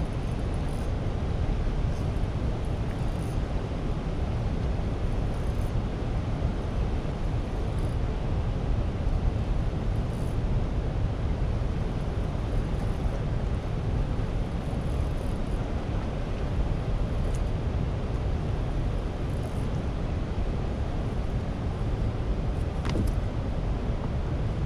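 Steady rush of churning water from the dam's outflow, strongest in the low end, with a faint tick now and then.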